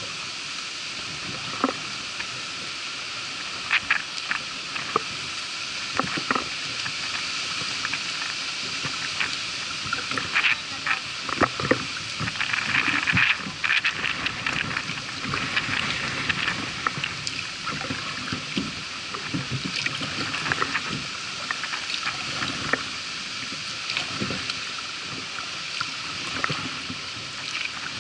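Kayak being paddled through floodwater: a steady rush of water along the hull with irregular paddle splashes and drips, busiest around the middle.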